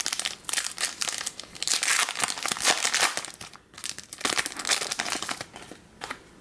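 Foil trading-card pack wrapper crinkling and tearing as it is pulled open by hand, a dense run of rustles with a brief lull about halfway through. The sound dies away about a second before the end.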